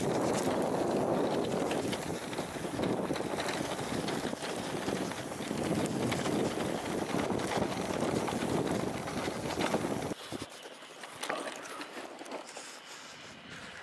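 Wind buffeting the microphone while riding a bicycle along a dirt track, uneven and gusty, with occasional knocks. About ten seconds in it cuts to a much quieter stretch of light wind.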